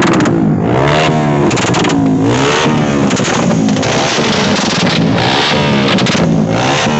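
Several motorcycle engines revved over and over, their pitch repeatedly climbing and dropping in quick overlapping blips.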